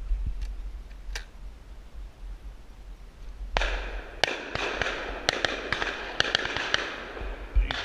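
Shotgun shots in a quick string, about half a dozen sharp reports over the second half, with one more near the end.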